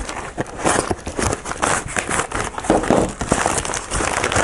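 A plastic shipping mailer bag being torn open and crinkled by hand: a dense, irregular run of crackles and rustles.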